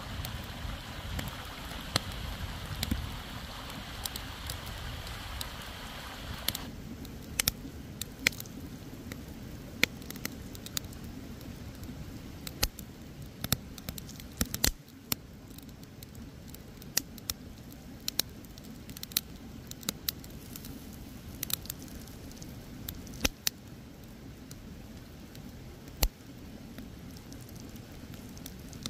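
A stream's steady rush for about the first six seconds, cutting off suddenly. Then fingers pull apart a fire-smoked salmon fillet on a stone, soft squishing with scattered sharp crackles.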